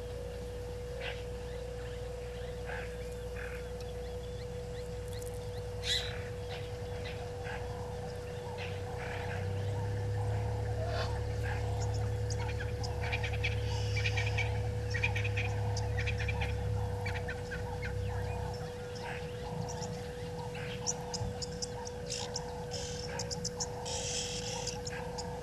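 Bush ambience at a waterhole: scattered short bird chirps and calls over a constant steady tone and a low background rumble. The rumble swells for several seconds around the middle.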